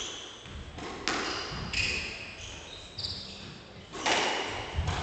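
Squash rally: the ball smacks off rackets and the court walls about five times, with short high squeaks from shoes on the wooden court floor.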